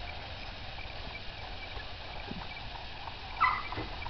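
Hooves of a horse pulling an Amish buggy, clip-clopping faintly along the road. A brief, louder sharp sound comes about three and a half seconds in.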